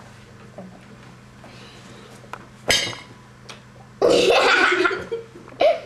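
A girl laughing: a short burst a little under three seconds in, then a louder, breathy laugh about a second long, and a brief voiced sound near the end.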